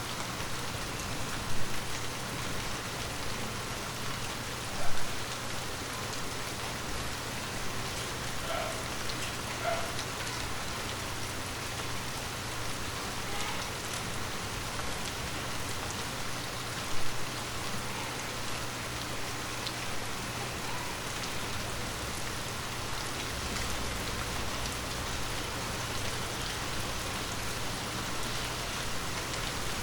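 Light rain falling steadily, with a few short louder taps standing out now and then.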